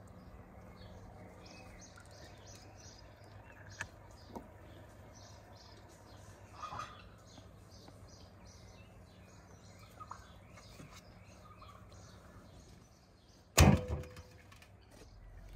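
Small birds chirping steadily in the background. About two seconds before the end, a sharp loud thump with a short metallic ring as the whole sturgeon is set down in a metal tray.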